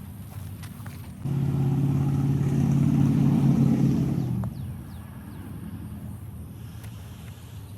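An engine running, with a low steady hum that turns loud and evenly pitched about a second in for some three seconds, then dies back to the hum.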